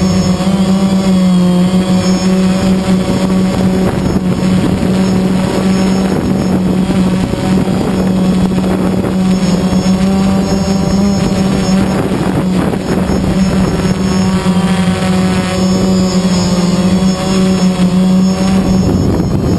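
Electric motors and propellers of a small multirotor camera drone, recorded from on board: a steady buzzing hum that wavers slightly in pitch, with wind rushing over the microphone.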